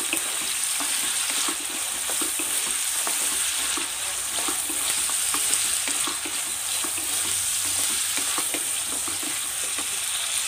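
Shallots, onion, dried red chillies and curry leaves sizzling steadily in hot oil in a kadai, while a wooden spatula scrapes and knocks against the pan over and over as they are stirred and sautéed.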